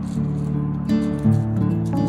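Background music: a strummed acoustic guitar playing chords with a steady rhythm.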